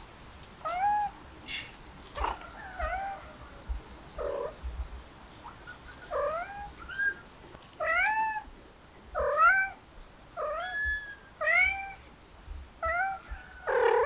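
Kitten mewing over and over: about a dozen short, high-pitched mews, each rising and then falling in pitch, more frequent and louder in the second half.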